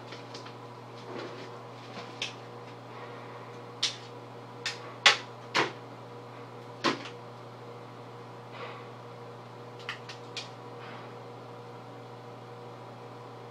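A series of short, sharp clicks and knocks, about eight of them, the loudest a little after five seconds in, over a steady electrical hum.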